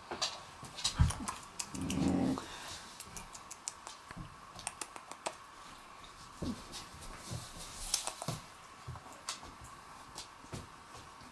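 Dogs, among them a Jämthund puppy, play-fighting: scuffling and many small clicks and knocks on a wooden floor, a thump about a second in and a short low growl about two seconds in.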